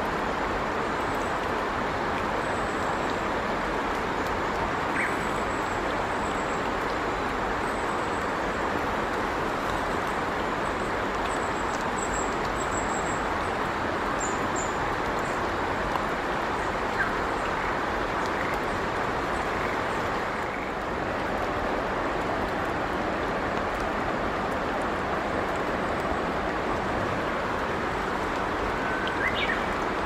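Steady rushing outdoor noise, even and unbroken, with faint thin high chirps scattered through the first half and a short call near the end.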